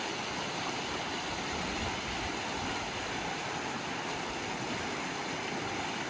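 Fast mountain creek rushing over rocks in whitewater: a steady, even rush of water.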